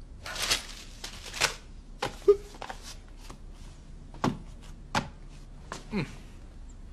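Newspaper rustling twice as it is lowered and folded, followed by a few sharp knocks and clicks about a second apart, the loudest a little after two seconds in.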